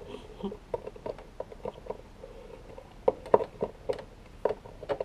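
Light, irregular clicks and taps of small plastic toy figures being handled, knocked together and set down on a tabletop, with a louder cluster of knocks about three seconds in.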